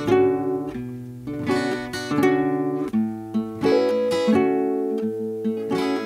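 Folk music: an acoustic guitar strummed and picked at a steady pace.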